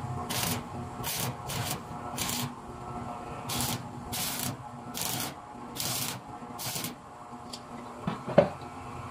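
Stick arc welding on the valve seat of a Mercedes cylinder head, crackling and hissing in about nine short bursts as the weld is laid on the seat to loosen it for removal. A single sharp metal knock near the end, the loudest sound, as the head is handled.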